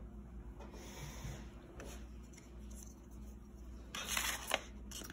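Quiet room tone, then about four seconds in a short rustle and scrape as a sheet of paper is handled and lifted off a cutting mat.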